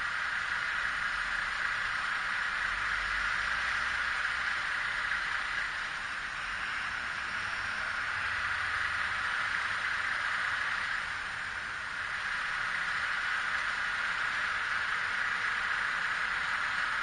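Street traffic noise: a steady hiss with low rumbles as cars drive past, while dump trucks idle across the street.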